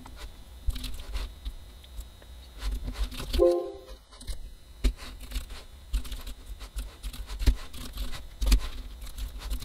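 Typing on a computer keyboard: irregular key clicks, with a short hum of voice about three and a half seconds in.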